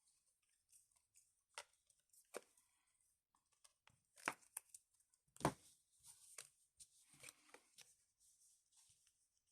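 Faint rustling and crinkling of trading-card packaging, broken by several sharp clicks and taps, the loudest about five and a half seconds in: hands opening a Yu-Gi-Oh box and handling its packs and cards.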